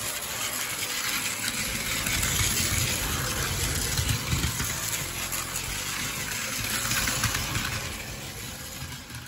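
Plarail battery-powered toy trains running on plastic track: a steady whirr of the small motors with the rattle of wheels on the track, fading out near the end.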